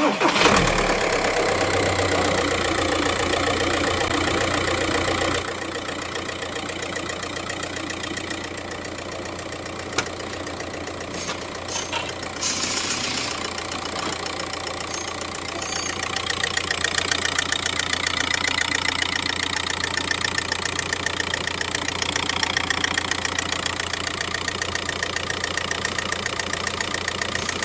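Audi 1.9 TDI four-cylinder turbodiesel engine running with a fast, rhythmic ticking, a noise the mechanic calls not normal. The engine note drops and settles about five seconds in.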